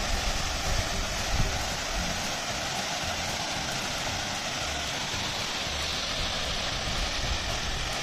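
Steady rush of water from a waterfall and its stream, an even hiss with a few faint low bumps.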